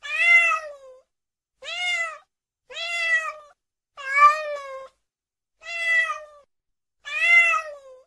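Domestic cat meowing six times, each meow under a second long, rising then falling in pitch, with silent gaps of about half a second to a second between them.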